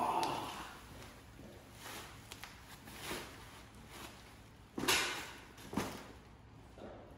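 A heavy winch bumper being handled and offered up to the front of a Land Rover Defender: rustling of its plastic wrap, footsteps, and a few knocks, the loudest about five seconds in.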